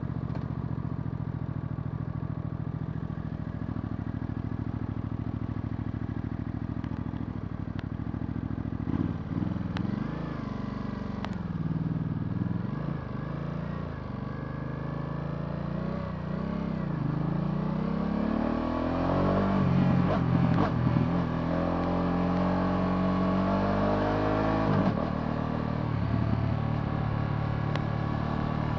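Ducati Multistrada V2S's 937 cc V-twin engine running at a steady note, then from about a third of the way in revving up and down again and again as the bike is ridden through the gears. Near the end comes a long climb in engine pitch that drops off sharply.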